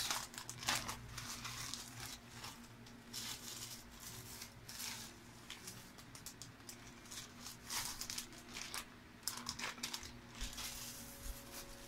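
Plastic packaging rustling and crinkling in irregular short bursts of handling: a poly mailer bag being opened and a plastic-wrapped package drawn out of it.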